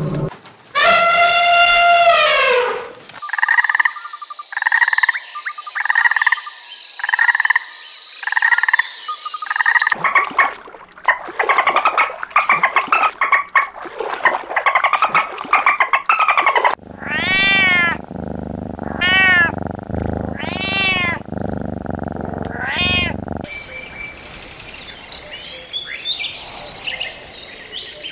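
A series of different animal calls one after another: a falling cry, then a run of pulsed calls about two a second, then busy chatter, then several rising-and-falling calls, then quieter mixed sounds.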